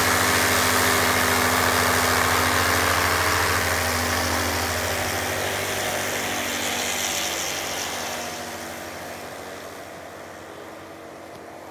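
Kitfox 3 light aircraft's HKS engine and propeller running steadily, then fading over the last few seconds as the plane moves away.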